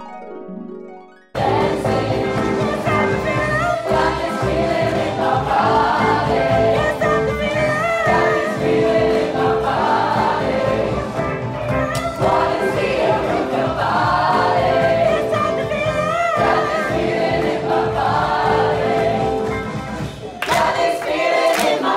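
A few plucked notes, then an abrupt cut about a second in to a pantomime cast singing a finale song together over instrumental backing, recorded live from the audience.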